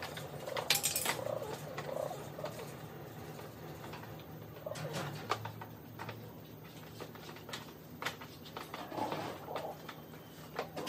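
Caged birds giving short, low calls a few times, over a steady low hum. Scattered sharp clicks and clinks of hand tools on a dismantled motorcycle run through it, the loudest about a second in.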